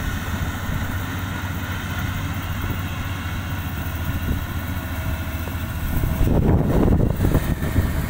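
Kubota combine harvester's diesel engine running steadily as it cuts rice. About six seconds in, wind begins buffeting the microphone with a gusty low rumble.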